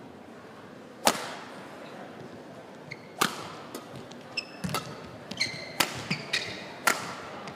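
Badminton rally starting about a second in: sharp, ringing strikes of rackets on the shuttlecock every one to two seconds, with short squeaks of court shoes on the floor between the strikes.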